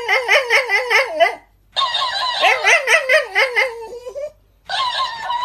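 A dog howling in wavering, up-and-down yowls, in three bursts separated by short pauses.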